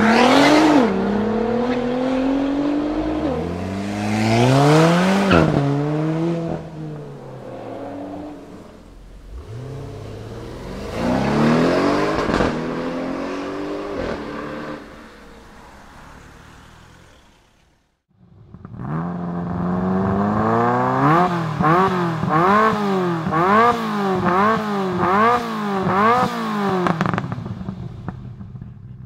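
Performance cars accelerating hard past one after another, engine pitch climbing and dropping at gear changes, then falling away as each car goes by; the first is a Nissan GT-R's twin-turbo V6. After a brief silence, an engine is revved repeatedly, its pitch rising and falling about twice a second before fading out.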